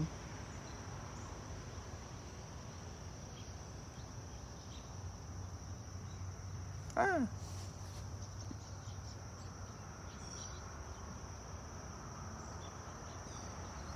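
Crickets trilling in a steady, high-pitched drone. About halfway through, a short voice-like sound falls in pitch.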